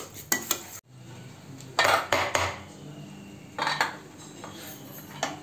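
Stainless-steel idli stand plates clattering and clinking against each other as they are handled and stacked, in a few separate bursts, the loudest about two seconds in. At the very start, a spoon scraping briefly through semolina idli batter in a steel pan.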